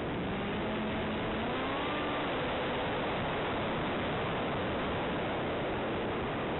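Onboard audio of an FPV Bixler model plane in flight: a steady rushing hiss of air and weather over the microphone, with a faint electric-motor whine that rises in pitch during the first couple of seconds.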